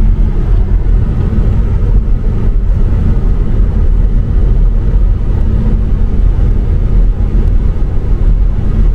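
Steady rumble of road and engine noise heard inside a car's cabin while it drives at highway speed.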